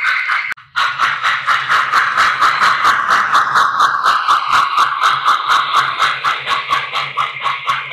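Model locomotive running on a layout: a fast, even beat of about five strokes a second over a low steady hum, with a brief drop-out about half a second in.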